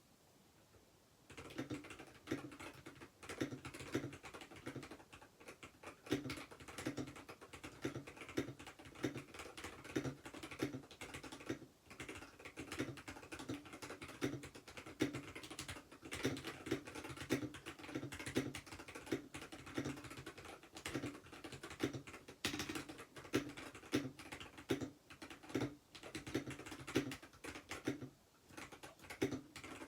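Continuous fast typing on a Keychron K6 Pro mechanical keyboard with linear red switches: a dense, irregular stream of key clacks. It starts about a second in.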